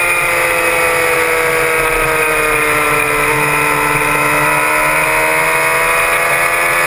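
Suzuki GSX-R750 K6 inline-four sport-bike engine running hard, heard from a camera mounted on the bike. Its pitch falls gently through the first half, then rises again near the end as the revs build.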